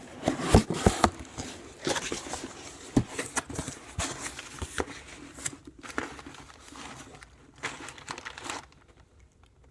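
Packaging being handled and opened, crinkling and rustling with sharp clicks and knocks. It stops about a second before the end.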